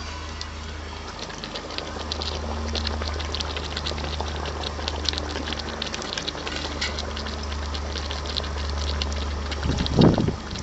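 Spiced masala gravy boiling in an iron kadai around a whole chicken, a fast crackle of bubbles popping over a steady low hum. A brief, louder sound comes near the end.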